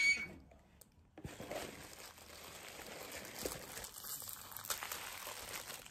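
Thin plastic wrappers crinkling and rustling as mochi squishies are unwrapped by hand. The crinkling is faint and ongoing from about a second in, after a brief high-pitched sound cuts off at the very start.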